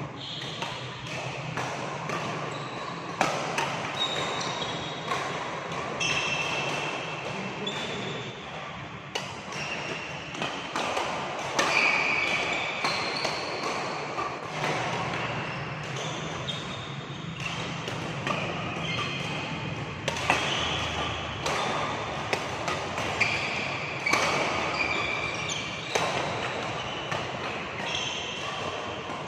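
Badminton rally: rackets striking the shuttlecock in sharp, irregular hits, with frequent short, high squeaks of shoes on the court floor.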